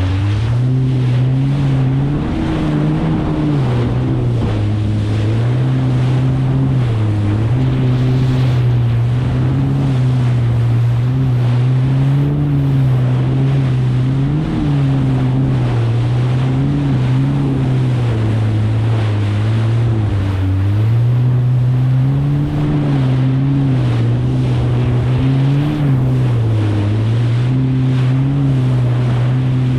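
Kawasaki STX 160 jet ski's four-cylinder engine running at riding speed through about 2.5 ft chop, its pitch rising and falling every few seconds as the craft rides over the waves, over a steady rush of water and wind.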